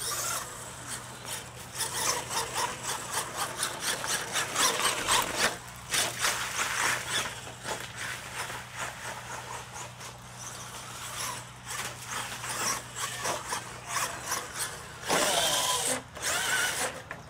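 R/C mega truck's electric motor whining under throttle as the truck launches, with its tyres churning through dirt and splashing through muddy water. The sound comes in suddenly at the start, and there is a louder burst near the end as the truck tumbles over.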